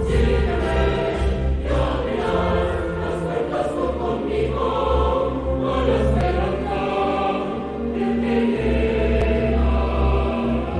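Music with a choir singing over a full accompaniment.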